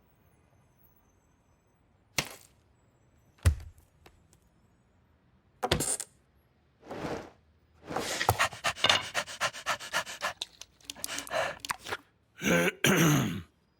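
Cartoon scuffle sound effects: two sharp thuds, then a rapid clattering rattle, then a breathy cry falling in pitch near the end.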